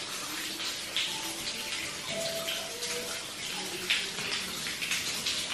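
Water running and splashing inside a limestone dripstone cave, a steady rush with irregular surges.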